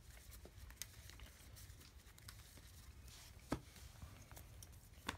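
Faint handling of trading cards on a table: small taps and rustles, with two sharper clicks, one about three and a half seconds in and one near the end.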